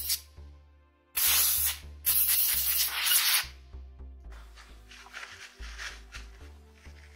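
Compressed-air blow gun blasting air through a 9mm pistol barrel in two bursts, a short one about a second in and a longer one right after, blowing out the bore.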